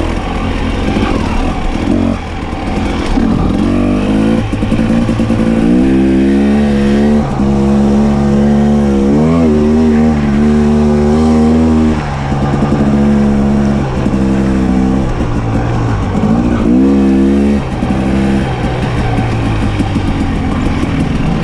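Off-road vehicle's engine running under load on a dirt trail, its pitch climbing, falling back and wavering several times as the throttle opens and closes.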